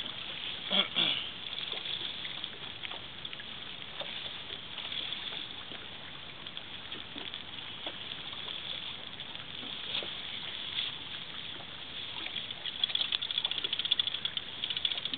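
Steady hiss of wind and water on an open boat, with a single knock about a second in and a quick run of rattling clicks near the end.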